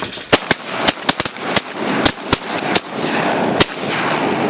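A rapid volley of shotgun blasts from several hunters firing at ducks, about ten sharp shots in under four seconds, some almost on top of one another. A steady rushing noise carries on underneath and grows louder toward the end.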